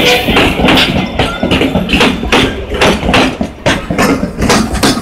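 Passenger cars of a narrow-gauge train rolling past close by, their wheels knocking over the rail joints about three or four times a second over a low rumble.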